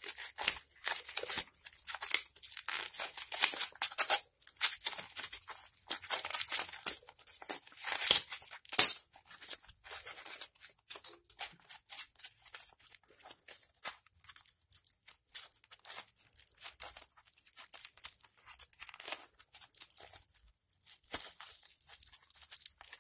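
Foil and film layers of an old lithium-ion battery being peeled and torn apart by gloved hands: irregular crinkling and tearing, louder through the first nine seconds or so and softer and sparser after that.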